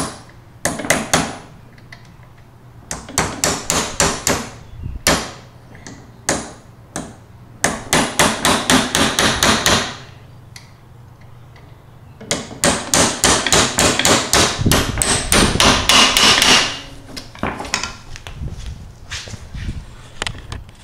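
Small sledge hammer tapping a steel push nut onto a mower deck roller's shaft: runs of quick, sharp metal strikes at about seven a second, with pauses between, the longest flurry a little past the middle.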